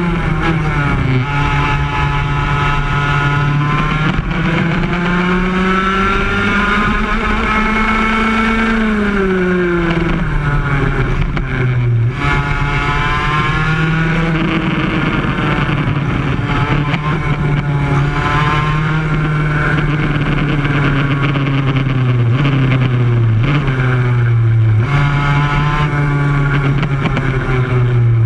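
Yamaha KT100 single-cylinder two-stroke kart engine running flat out, heard close up from on board. Its pitch climbs steadily as it accelerates and drops sharply several times as it slows, then climbs again.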